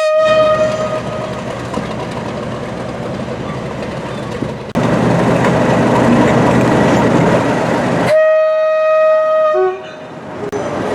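Train horn blown twice over the noise of passing trains: a short, steady high blast right at the start, and a longer one about eight seconds in that ends on a brief lower note. In between, the rush and wheel clatter of a train going by, which jumps louder about five seconds in.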